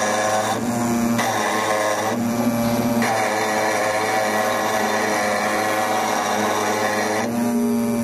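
CNC stone engraving machine's spindle running, its small bit grinding lettering into black granite: a steady whine over a gritty hiss. Three times it briefly changes, a lower steady hum coming to the fore.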